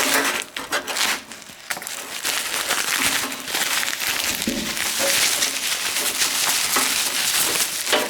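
Plastic packaging crinkling and rustling as it is cut with a dull razor blade and pulled away by hand, with a short quieter gap about a second in.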